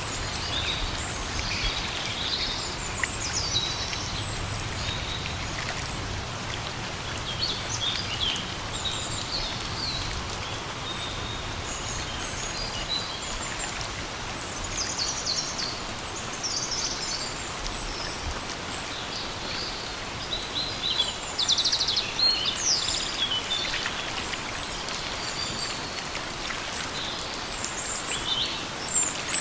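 Steady rain falling, with birds chirping on and off over it. A burst of louder, rapid chirps comes about two-thirds of the way through.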